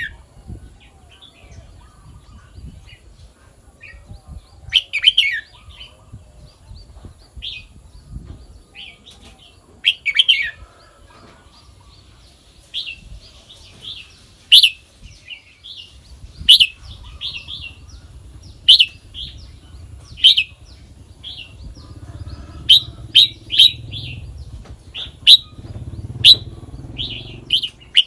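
Red-whiskered bulbul singing: short, loud, whistled phrases repeated every second or two, coming closer together in the second half.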